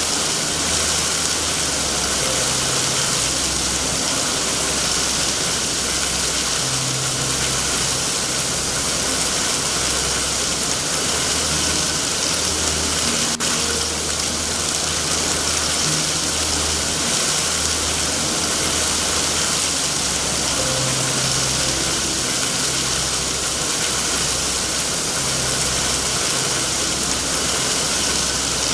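Steady heavy rain hiss with a low, uneven rumble underneath and an occasional faint tick.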